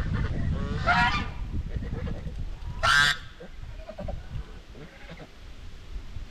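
White Chinese geese honking: a rising call about a second in, then a shorter, louder honk about three seconds in, followed by a few fainter calls.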